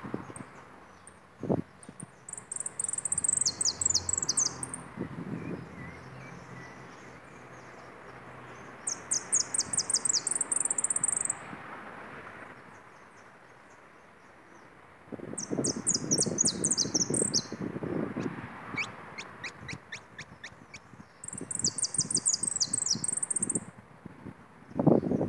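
A caged jilguero (saffron finch) singing in the whistled 'pitador' style. It sings five separate phrases of rapid, high notes, each lasting two or three seconds, with pauses between them. A low rumble runs under the third phrase.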